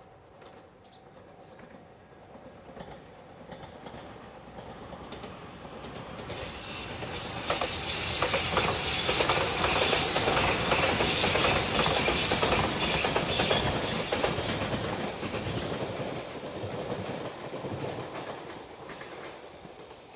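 A JR Shikoku express train passing close by at speed. It grows louder as it approaches, is loudest midway with wheels clattering over rail joints and a high hiss, then fades as it moves away.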